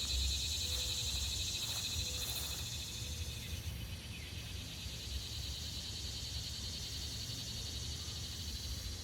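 A steady, high-pitched trilling chorus of insects that weakens a little after about three and a half seconds, over a low rumble.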